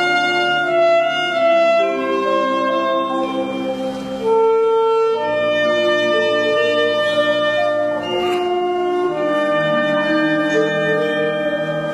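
School wind band playing: brass and woodwinds holding full chords that change every second or two.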